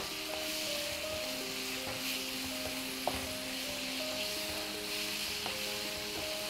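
Chopped mushrooms and masala sizzling in a nonstick frying pan while a wooden spatula stirs them, with a few light knocks of the spatula against the pan. Soft background music with held notes plays underneath.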